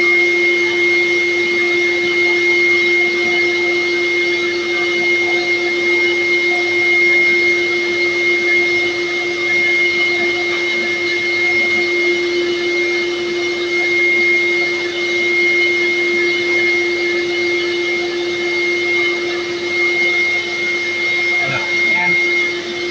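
Motor of an electric grooming tool running steadily, a constant high whine and lower hum over an airy rush.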